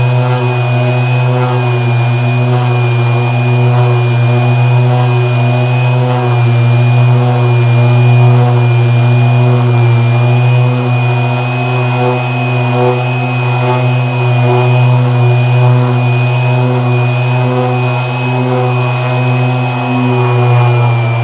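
Metabo SXE 450 TurboTec random orbital sander running steadily while it sands timber: a steady low hum with a thin high whine above it, unchanged throughout.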